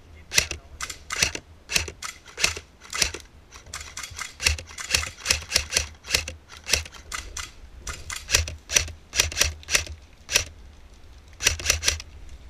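Airsoft rifle firing single shots in quick succession, each a sharp mechanical click, about two or three a second with some shots in quick pairs and a brief pause near the end.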